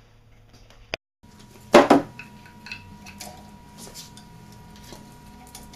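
Metal clinks and knocks of tools and hardware being handled on a marine V8's exhaust manifold and elbow, with one loud clunk about two seconds in and scattered lighter clicks after it.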